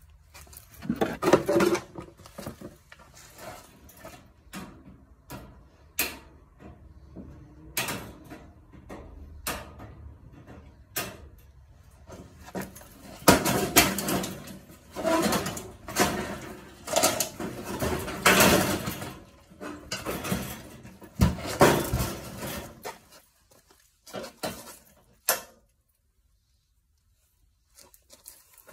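Metal parts and hand tools clanking and clattering as a washing machine is dismantled: a run of irregular knocks and rattles that gets busier and louder about halfway through, then dies away into a short silence near the end.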